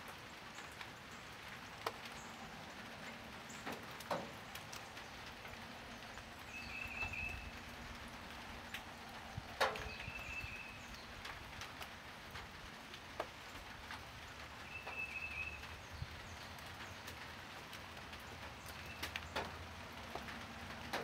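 Light rain falling steadily, with scattered sharp drip ticks of drops landing close by. A short high chirp sounds three times.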